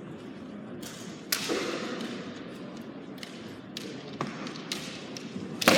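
Kendo sparring: sharp cracks of bamboo shinai strikes and stamping footwork on the wooden floor, with light clicks of the swords touching between. A sharp hit about a second and a half in and a louder one near the end are each followed by a fencer's shout (kiai).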